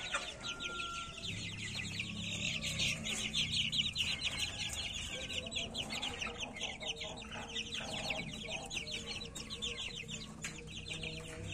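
A cage of month-old Pama chicks (young gamefowl chickens) peeping together: many overlapping high, short peeps, each dropping slightly in pitch, in a dense steady stream.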